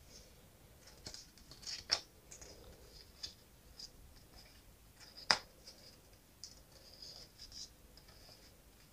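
Pages of a small paper booklet being turned by hand: faint rustles and scrapes with a couple of sharper paper flicks, about two seconds in and just past five seconds.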